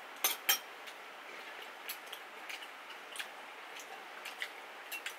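Metal chopsticks and a spoon clinking against bowls and a glass dish while eating: two sharper clicks about half a second in, then scattered light taps.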